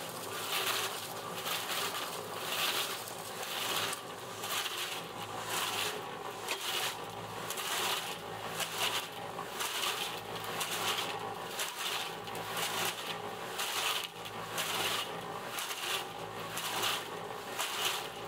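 Electric drum concrete mixer running, with a steady motor hum and the wet concrete mix tumbling in the turning drum as a regular crunching swish, repeating about every two-thirds of a second.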